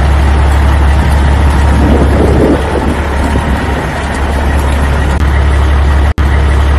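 Loud, steady low rumble of a heavy vehicle engine running. It breaks off for an instant near the end and comes straight back.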